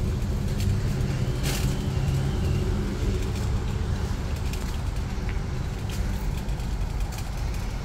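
Loaded metal shopping cart rolling over a concrete sidewalk, its wheels giving a steady low rattling rumble with scattered faint clicks.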